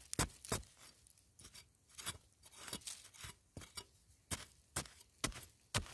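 A hand digging tool chopping and scraping into dry, hard soil: a dozen or so sharp strokes, about two a second, with soil crunching between them.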